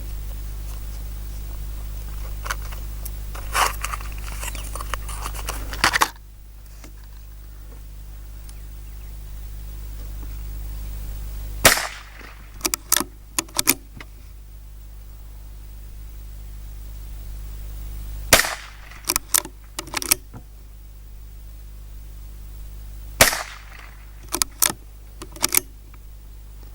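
Henry Youth .22LR lever-action rifle firing four single shots several seconds apart. Each shot is followed by a quick run of small metallic clicks as the lever is worked to eject the case and chamber the next round.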